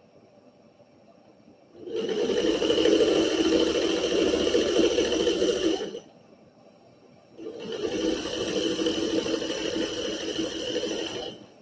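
Electric sewing machine running as fabric strips are stitched, in two runs of about four seconds each: the first starts about two seconds in, the second follows after a short pause.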